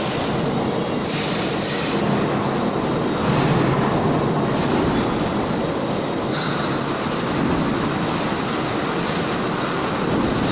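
Fuel tank washing machine running: a steady mechanical noise with several short high-pitched squeals or hisses.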